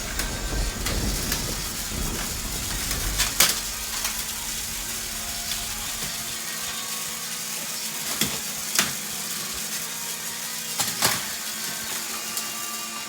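Battery-powered Plarail toy train running on plastic track: a steady whirring hiss with a few sharp clicks.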